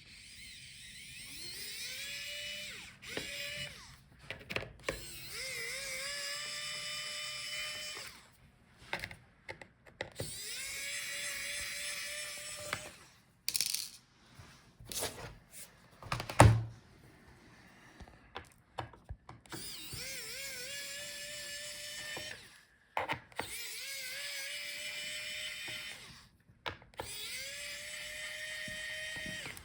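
Small electric screwdriver with a T4 Torx bit backing out laptop bottom-case screws. Its motor whines up in pitch and then runs steadily for two to three seconds at a time, about six times, with small clicks and taps between the runs.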